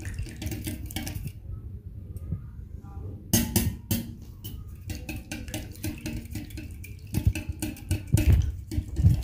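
Wire balloon whisk beating eggs in a glass bowl: rapid clicking and tapping of the metal wires against the glass, which drops off briefly about a second and a half in. The eggs are being beaten until the yolks blend smoothly into the whites.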